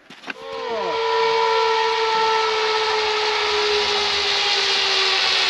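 Zipline trolley pulleys running along the steel cable as a rider comes in: a steady whine over a hiss that swells over the first second, then holds with its pitch sinking slowly.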